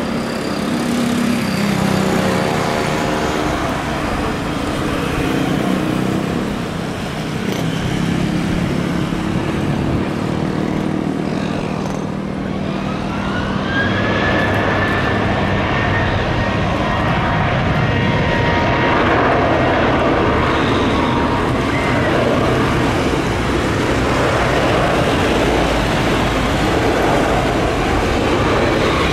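Boeing 737-800's twin jet engines running with a steady, loud roar. About halfway through, a whine rises and then holds as the engines spool up for the takeoff roll.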